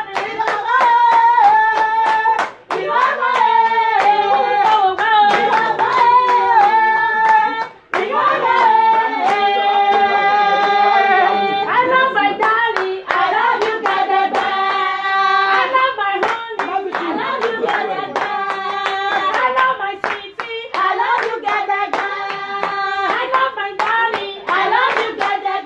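Singing with steady, rhythmic hand-clapping keeping the beat, breaking off briefly about three and eight seconds in.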